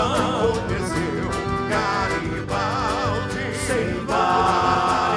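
Traditional gaúcho song for a folk dance: a singer holds long, wavering notes over instrumental accompaniment with a steady beat.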